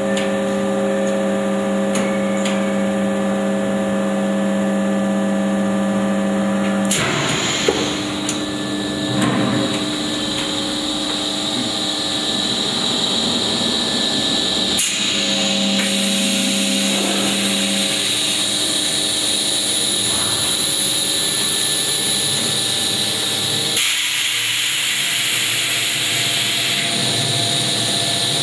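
Extrusion blow molding machine for 50 L HDPE bottles running while it extrudes the parison and closes the mold around it. It gives a steady mechanical hum made of several held tones, with a few clicks. The hum shifts in pitch and level about 7 s in, again around 15 s, and again near 24 s.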